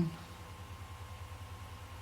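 Steady low hum with a fast, even throb, and a faint steady whine above it: background machine or electrical hum.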